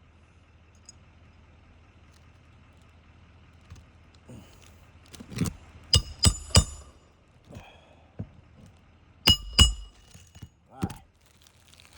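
Hammer striking a steel shingle snake tool to drive roofing nails under a lifted shingle: sharp metallic blows that ring, a quick run of three about six seconds in and two more about nine and a half seconds in, with a few softer knocks around them.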